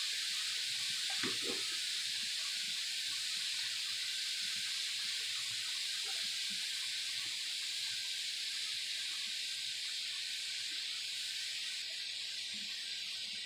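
Pork rib steaks sizzling steadily on a hot flat-top griddle, with a couple of light knocks about a second in.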